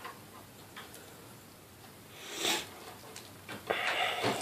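Power supply cables being handled inside a computer case: a soft rustle about halfway, then a short cluster of plastic clicks and rustling near the end.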